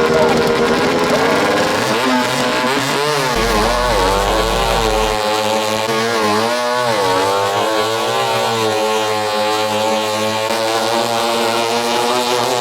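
Racing speedboat engine running hard, its pitch swinging up and down several times in the first half, then holding steadier.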